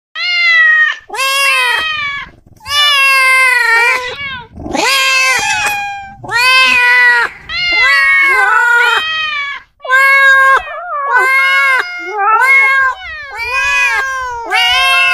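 Cats and kittens meowing, about a dozen loud, drawn-out meows one after another with short breaks between them.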